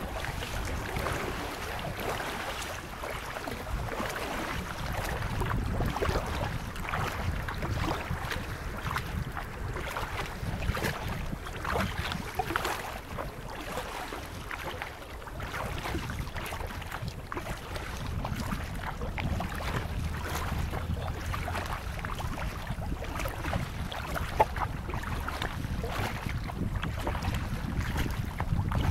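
Kayak paddling on a river: water splashing and dripping with the paddle strokes, over a steady rumble of wind on the microphone.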